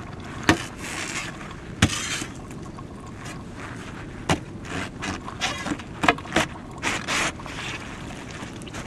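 Miner's metal bar striking and scraping solid sulphur to break off chunks: three sharp knocks spaced a second or two apart, then a quicker run of knocks and scrapes.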